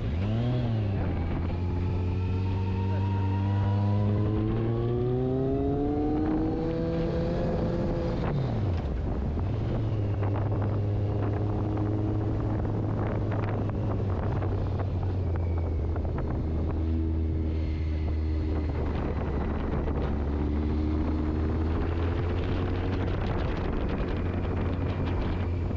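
Motorcycle engine pulling with steadily rising pitch for about eight seconds, dropping away briefly near nine seconds, then running at a steadier pace with smaller rises and falls, with wind noise on the microphone.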